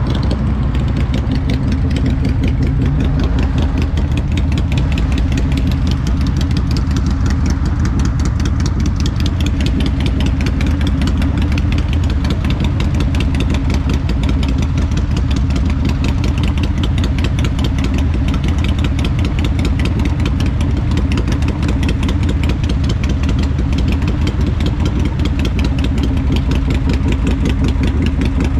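Motorcycle engine running steadily at an unchanging pitch.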